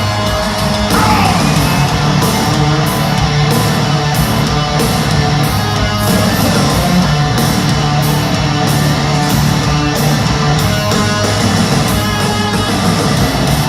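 Heavy rock music: distorted electric guitars over a steady drum beat, loud and even throughout.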